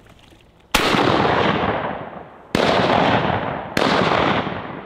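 Three shotgun blasts at ducks in flight, the first about a second in and the next two about a second and a half and then a second apart, each report rolling away for over a second.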